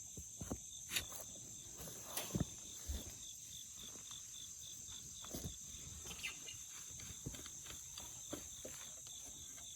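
Crickets and other insects chirping steadily, one pulsing at about four chirps a second, with scattered soft knocks and rustles from handling soil in the garden bed.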